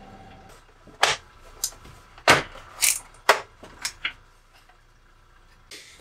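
About seven sharp, irregularly spaced clicks and taps from a screwdriver and screws working against the plastic shell of a Super Nintendo console as it is taken apart.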